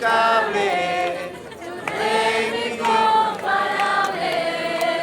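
A group of young people singing together in held notes, phrase after phrase with short breaks.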